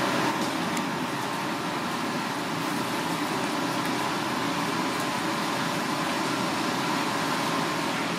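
Gas stove burner running under a pot of water coming up to the boil: an even, steady rushing noise with a faint steady hum.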